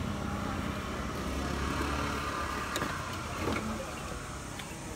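Low, steady rumble of a motor vehicle that fades out about halfway through, with a few light clicks near the middle.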